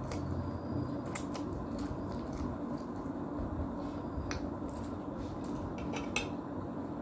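Close-up eating sounds of instant noodles: a few sharp clicks of a fork or spoon against a plate or bowl among soft mouth sounds, over a steady background hum.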